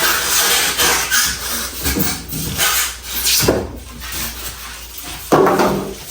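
Scraping and rubbing of packaging being handled around a new chest freezer, a run of rough strokes in the first few seconds, then quieter handling noises.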